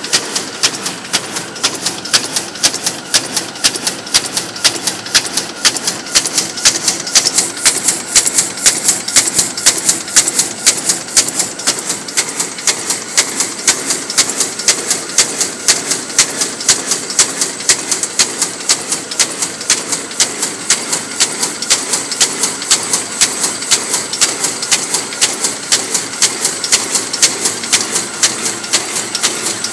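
DAKIOU HBJ-D800 paper carton erecting machine running at high speed: a steady mechanical clatter with a rapid, even beat of sharp clacking strokes.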